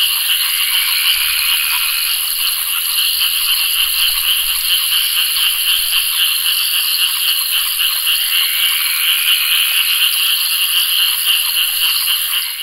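A dense chorus of many frogs calling together, a continuous mass of rapid pulsed calls.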